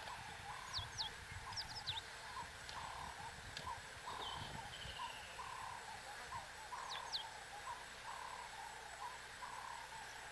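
Wild birdsong: a few thin, high whistles that drop in pitch, in quick pairs in the first two seconds and again about seven seconds in. Under them runs a faint chorus of soft repeated notes, about two a second, over a low steady hiss.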